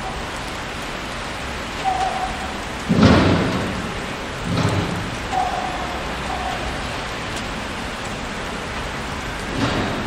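City street ambience: a steady hiss of traffic, with a heavy thud and rumble about three seconds in, a smaller thump a second and a half later, and a few short tones like distant horns.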